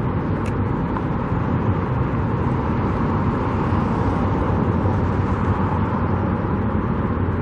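Steady low outdoor rumble of traffic and construction-site machinery, without distinct events.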